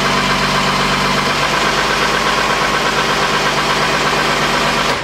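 Ferrari 412 T2's 3.0-litre V12 Formula 1 engine idling steadily at a constant pitch, just after being started.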